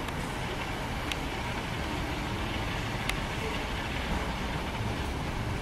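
Class 350 Desiro electric multiple unit moving away slowly along the track, a steady low rumble of wheels on rails. Two short sharp clicks come about a second and three seconds in.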